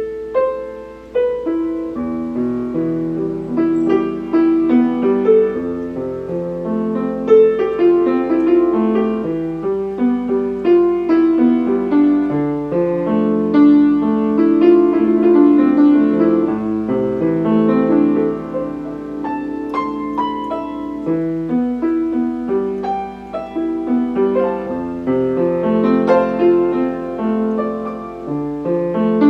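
Piano playing a continuous passage of chords and running melodic notes.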